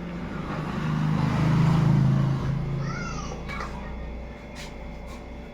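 A motor vehicle passing by: engine and road noise swell to a peak about two seconds in, then fade. A short high call follows around three seconds in.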